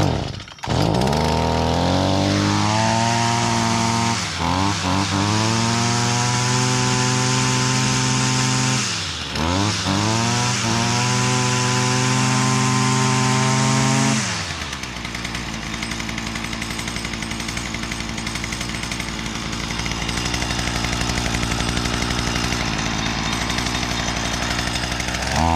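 Stihl FS 55 R string trimmer's small two-stroke engine catching on a pull of the starter cord, started on choke, and running fast and steady. It dips and picks back up twice, then about halfway through settles to a quieter, even run, and near the end starts revving in quick pulses. It is running on a newly fitted replacement carburetor still at its stock, unadjusted settings.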